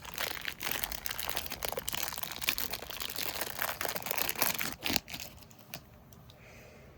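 Plastic packaging crinkling as a squishy toy is handled and unwrapped, stopping about five seconds in.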